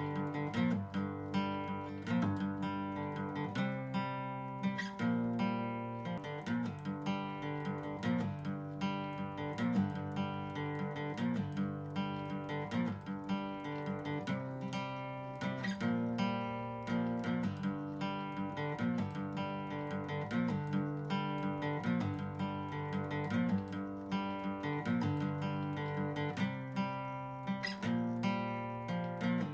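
Background music of a strummed acoustic guitar, chords changing at a steady pace.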